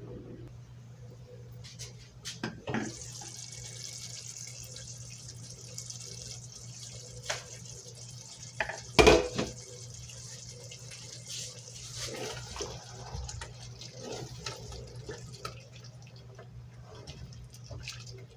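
Water running steadily, as from a tap, with a few sharp knocks and one loud clunk about halfway through.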